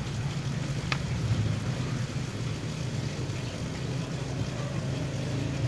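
An engine running steadily somewhere off, a constant low hum without any change in speed, with one faint tick about a second in.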